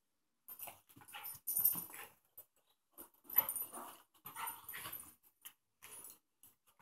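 Pet dog making short, irregular bursts of play sounds while playing with a cat, the loudest about a second and a half in and again just past three seconds.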